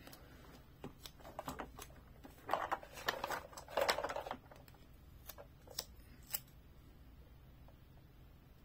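Hands handling a hard plastic toy truck and working its hinged side door: rubbing and scraping with a few sharp plastic clicks. The busiest stretch is about two and a half to four and a half seconds in, then it settles to faint room tone after about six and a half seconds.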